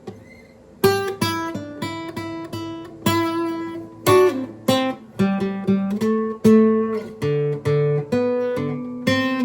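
Guitar music, with chords strummed and plucked one after another from just under a second in, the chords changing several times.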